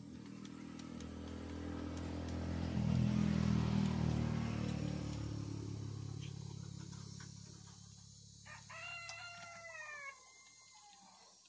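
An engine passes by, growing to its loudest about three seconds in and then fading away. Near the end, a rooster crows once, about a second and a half long, its pitch dropping at the end.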